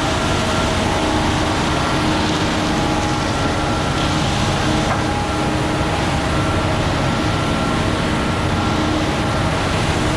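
Diesel engine of a Terex FD4000 front-discharge concrete mixer truck running steadily: an even drone with a faint high whine over it.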